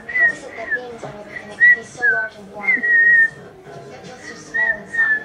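A boy whistling through pursed lips: a string of short notes at a fairly high pitch, some bending up or down.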